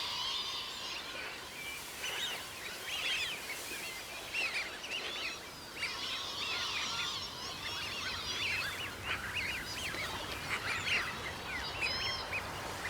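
A large mixed flock of Eurasian wigeon and lapwings calling together: a dense chorus of many short, overlapping whistles that rise and fall in pitch and never stop.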